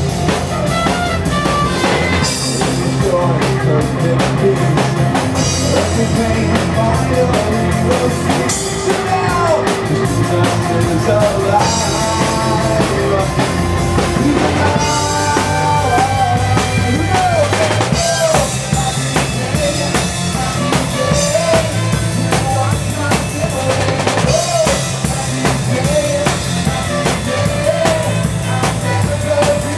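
Live rock praise band playing an instrumental passage, with a drum kit keeping a steady beat of bass drum and snare under bass and a bending melody line.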